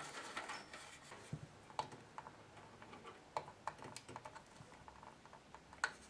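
Faint, scattered clicks and light taps of fan cables and their plastic connectors being handled and tucked inside a PC case, with one sharper click near the end.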